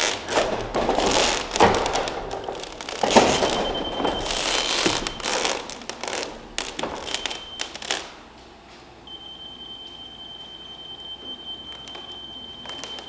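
Rustling and handling noise for the first several seconds, then a steady high-pitched electronic tone from a laser level receiver, which sounds in short snatches and then holds continuously from about nine seconds in while the grade height is being checked.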